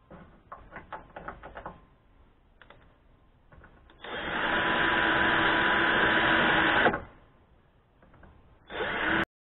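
Cordless drill running for about three seconds as it drills into the car's sheet-metal sill, with a steady motor whine, then a second short burst near the end. A few light clicks and taps come first.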